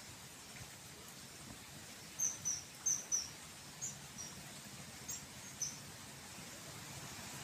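A bird chirping: a run of about eight short, high chirps starting about two seconds in and ending near six seconds, over a faint steady outdoor hiss.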